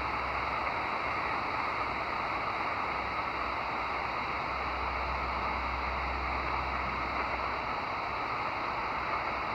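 Steady hiss and static from a Grundig G5 shortwave receiver tuned to the 20-meter amateur band, heard in a gap between single-sideband transmissions.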